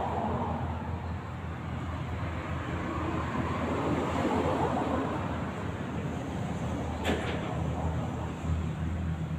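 Steady low rumble with a low hum underneath, and one short click about seven seconds in.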